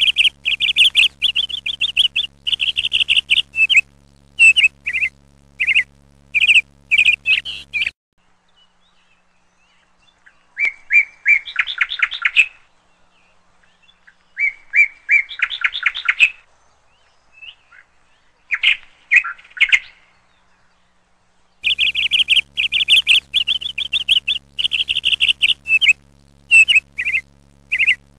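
Small birds chirping in rapid trills and short repeated phrases, in bursts with brief pauses. A low steady hum sits under the chirping in the first and last stretches and cuts off abruptly around eight seconds in.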